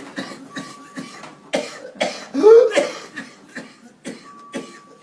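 A person coughing in a rapid series of short coughs, about ten in all, several with a voiced tail that rises and falls in pitch; the loudest come about halfway through.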